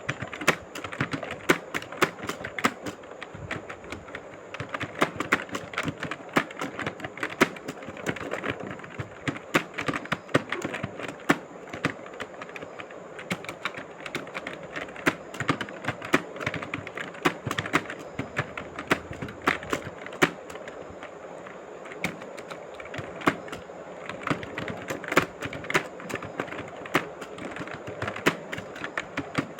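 Steady, fast typing on a keyboard: a continuous uneven patter of key clicks, several a second, with an occasional harder keystroke.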